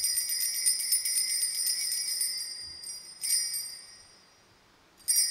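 Altar bells rung at the elevation of the consecrated host: a rapid jingling shake that fades out about two and a half seconds in, then a single short ring about three seconds in and another near the end.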